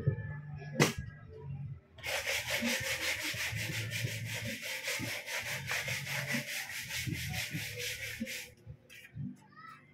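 Steady, scratchy sanding noise that starts about two seconds in and stops a little before the end, after a single sharp click about a second in.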